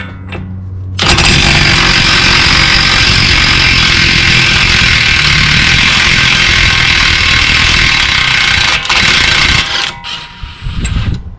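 Half-inch impact wrench hammering on the front axle nut to break it loose. It starts about a second in and runs steadily for about eight and a half seconds, with one very short break near the end, then stops.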